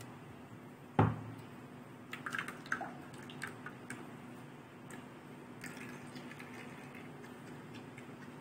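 A steel mesh strainer knocks once against a white bowl about a second in, then a few small drips and taps as coconut milk drains from the grated coconut pulp in the strainer into the bowl. A faint steady hum runs underneath.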